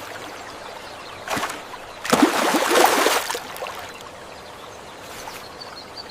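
Flowing water, a steady rushing hiss, with a short rise about a second in and a louder rush of noise lasting about a second around two seconds in.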